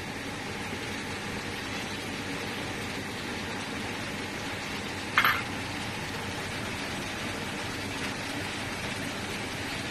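Steady rushing kitchen noise from around a claypot on a gas stove, with one sharp clink about five seconds in.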